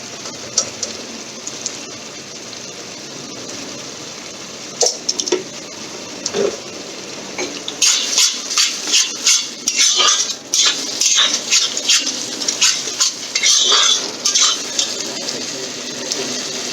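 A spoon scraping and clinking against a cooking pot while a tomato and spice masala fries in ghee with a steady low sizzle. About halfway through, the stirring turns busy, with rapid scrapes and clinks.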